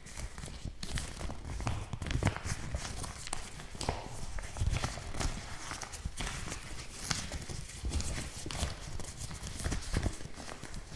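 Kraft paper crinkling: a dense run of irregular crackles and rustles, with no steady rhythm.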